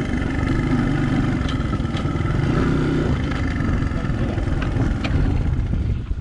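Dirt bike engine running steadily under way across rough ground, with a few light knocks; the sound falls away sharply at the very end.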